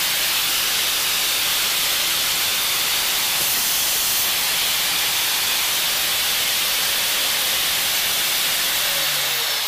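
Angle grinder with a newly fitted bronze plain-bearing bushing, running unloaded with a loud, steady hiss while it is run in. Near the end it is switched off and starts to wind down, its pitch falling.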